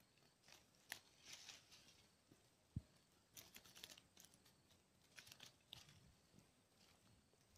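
Faint, scattered rustling and crackling in short clusters, with one soft low thump about three seconds in.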